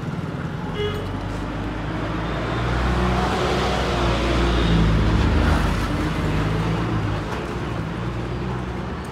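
Road traffic: a motor vehicle passing close by, its engine noise building to loudest around the middle and then easing, over steady traffic noise.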